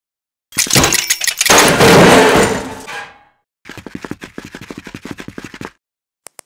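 Stop-motion sound effects: a loud rattling, crashing burst about half a second in that dies away over the next two and a half seconds, then a quick run of light clicks, with a few faint high ticks near the end.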